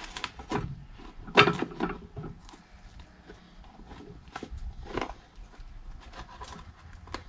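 A metal hand tool scraping and picking old cork filler out of the bottom of a leather shoe, in irregular scrapes and clicks, the loudest about a second and a half in and again about five seconds in, with a sharp click near the end.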